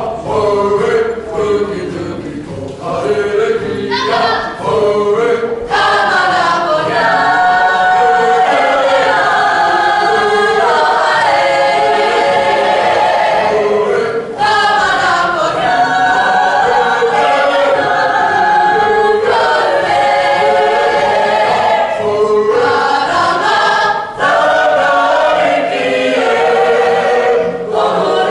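A mixed group of teenage voices singing together as a choir in harmony. It opens with short, broken phrases, then moves into long held lines with brief breaks between phrases.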